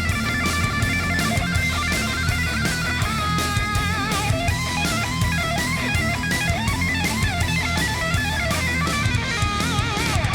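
Outro music: a rock track with electric guitar and a drum kit keeping a steady beat.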